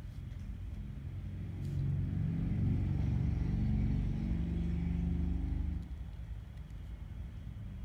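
A low engine-like rumble swells over a couple of seconds, holds, then drops off suddenly about six seconds in.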